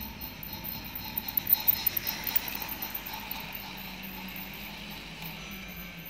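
Battery-powered toy train running on plastic track: a steady motor hum with the wheels and cars clicking and rattling as they pass, the clicks loudest and most frequent between about one and two and a half seconds in.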